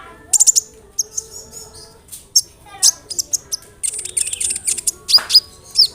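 Kolibri ninja, a sunbird, singing a rapid song of high, sharp chirps and trills, with quick down-sweeping notes near the end.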